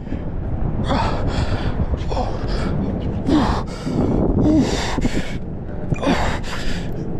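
A man breathing hard from exertion: a run of heavy, gasping breaths close to the microphone, about one a second, over a steady low rumble.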